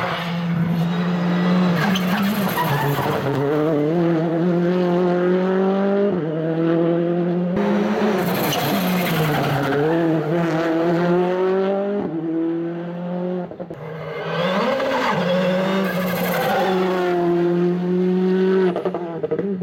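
Citroën C3 R5 rally car's 1.6-litre turbocharged four-cylinder engine running hard past at stage pace, its pitch rising and falling as it accelerates and changes gear. The sound breaks off and restarts several times.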